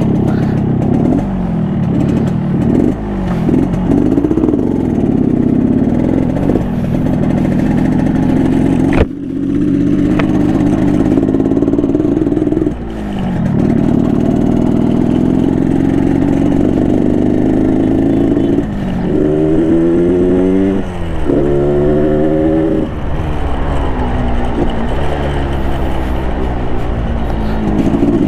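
Yamaha RX King's 135 cc two-stroke single-cylinder engine, on its stock exhaust, running and being ridden: the revs rise and fall, and about two-thirds through they climb and drop several times in quick succession as it accelerates through the gears. A sharp click about 9 seconds in.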